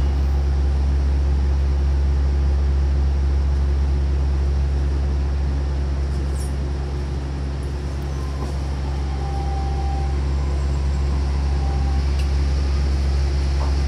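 Steady low hum and running noise inside an Okinawa Yui Rail monorail car. The car stands at a station, then starts to pull away partway through.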